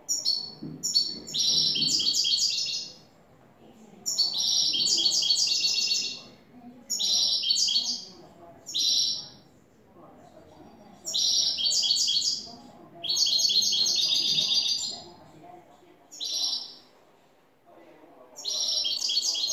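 A caged European goldfinch singing: a series of phrases of rapid high notes, each a second or two long, separated by short pauses.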